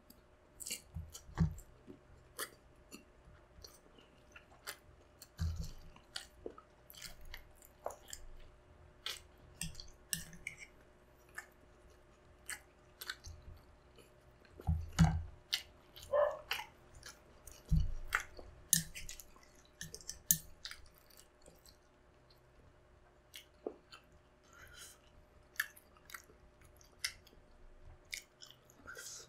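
Close-miked chewing of balut (boiled fertilised duck egg) heaped with chopped chilies: wet mouth clicks and smacks throughout, with a few soft low thumps.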